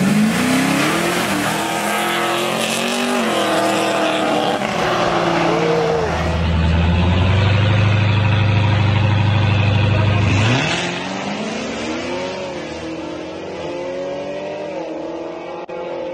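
Muscle-car V8 engines revving, then a loud steady low rumble from the Camaro SS and the supercharged Hellcat held at the line. About ten and a half seconds in, they launch: the engine notes climb, drop back at gear changes and climb again, fading as the cars pull away.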